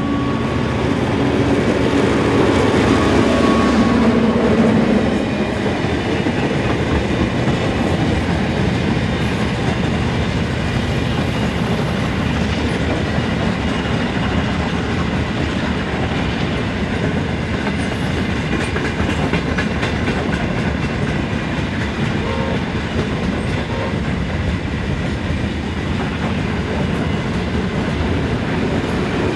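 A ballast train hauled by vintage diesel-electric locomotives passes close by. The diesel engines are loudest for the first five seconds or so. After that a long string of ballast hopper wagons rolls past with a steady rumble and wheels clicking over the rail joints.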